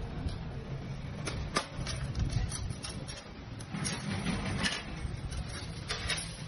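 Metal lathe running with a steady low rumble while steel spring wire is wound on it, with scattered sharp metallic clicks from the wire and tooling.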